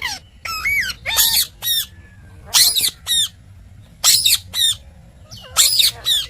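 Ringneck parrot squawking: short high calls that come in quick pairs, about one pair every second and a half.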